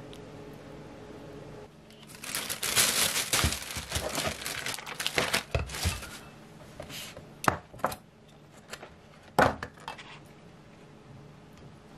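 Thin plastic takeout packaging crinkling and crackling as it is handled and opened, then a few separate sharp plastic clicks and knocks.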